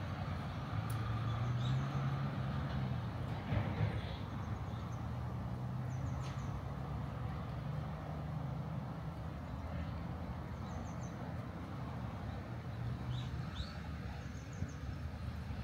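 Road traffic: vehicle engines running with a steady low hum that swells and fades as vehicles come and go, with short bird chirps now and then.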